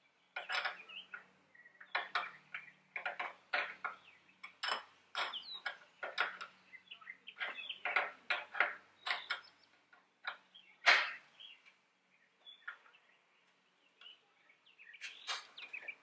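Open-end wrench clinking on a metal fitting on a plastic radiator tank as the fitting is tightened by hand. The clicks are short, irregular and metallic, the loudest about eleven seconds in, followed by a lull of a few seconds.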